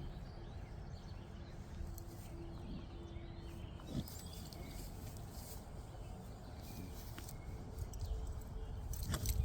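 A dog sneezing: a short sharp sneeze about four seconds in and a stronger burst near the end, over a steady low rumble and faint bird chirps.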